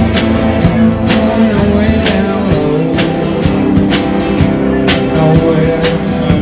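Live band music: a strummed acoustic guitar and a drum kit playing with a steady beat, with cymbal and snare hits about twice a second.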